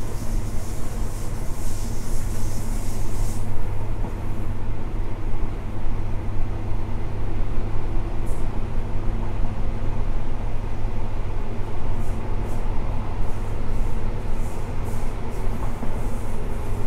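CrossCountry HST running along the line: a steady low hum of the train under way, with a high hiss for the first three seconds or so. Scattered short, sharp clicks follow later on.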